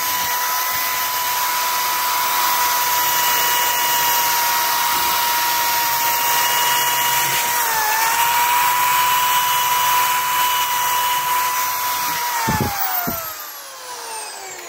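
Electric drill spinning a wheel attachment against a rusty axe head, scrubbing off rust with a steady high whine. The pitch dips briefly about eight seconds in as the wheel is pressed harder, then the drill is switched off and its whine falls away as it spins down over the last few seconds.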